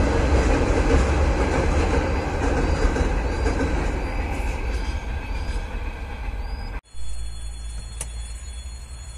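Freight train wagons rolling across a steel truss bridge, a steady rumble that slowly fades as the tail of the train passes. About seven seconds in it breaks off abruptly, leaving much quieter background sound.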